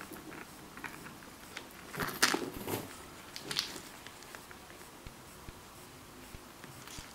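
Handling noise from a leather shoulder bag with a metal chain strap: scattered light clicks of the chain and rustling of the clear plastic wrap on its hardware, loudest in a cluster of rustles and clicks about two seconds in.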